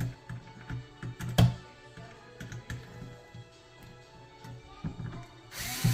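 Background music with scattered sharp clicks and taps of hand-tool work on a wall switch box. Near the end a small cordless Ryobi drill-driver runs for about a second.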